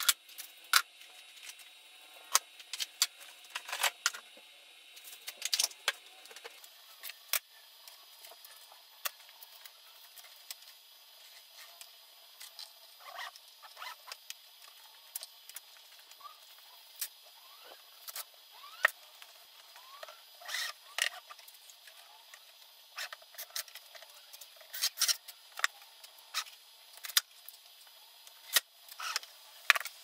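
Irregular clicks, taps and light rattles of small hardware and electronic parts being handled and set down on a wooden board.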